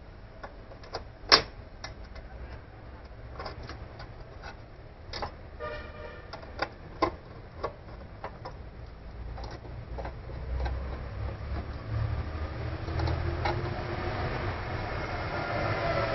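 Scattered clicks and knocks of hands handling the scooter's metal parts, with one sharp knock about a second in. From about ten seconds in a low rumbling hum builds up, its pitch sliding down near the end.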